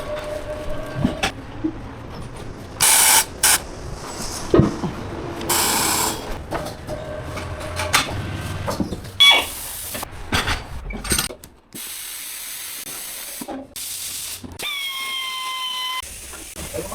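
Tyre-shop work on a large wheel: two short blasts of compressed air, a scatter of tool clicks and knocks, and near the end a brief whine that drops slightly in pitch.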